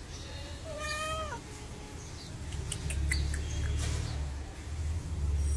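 A sick, paralyzed cat meows once about a second in, a short call that drops in pitch at the end. Later a low rumble and a few light clicks follow.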